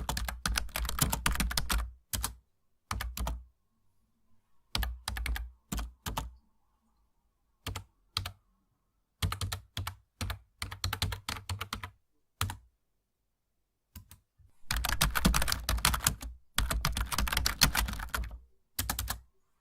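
Typing on a laptop computer keyboard: quick runs of key clicks in bursts, broken by pauses and a few scattered keystrokes, with long fast runs near the start and end.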